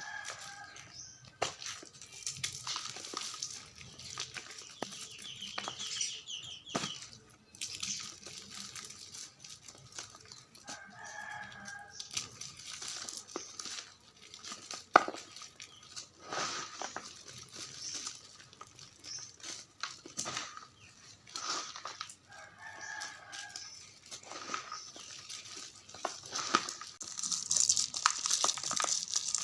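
Blocks of gym chalk mixed with confetti being crumbled, a run of dry crunching and crinkling crackles throughout. A few short pitched calls sound in the background near the start, about a third of the way in and about three quarters of the way in.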